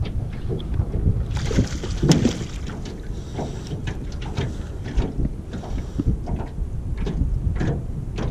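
Wind buffeting the microphone in a steady low rumble, with scattered light knocks and clicks, the loudest about two seconds in.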